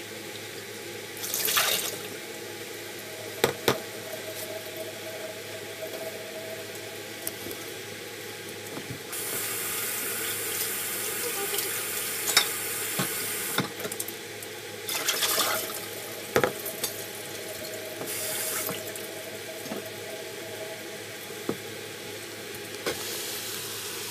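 Kitchen tap running into a sink in several spells, the longest starting about nine seconds in and lasting around four seconds, with a few sharp knocks from things handled at the sink.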